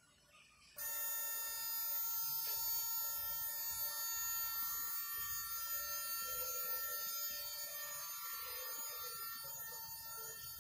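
Alarm buzzer on a ship's engine control console sounding: a steady buzzing tone that starts abruptly about a second in, holds, and eases slightly near the end.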